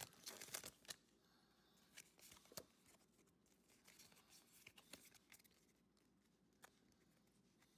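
Near silence, broken by faint paper rustles and a few soft clicks of Pokémon trading cards being handled, most of them in the first second.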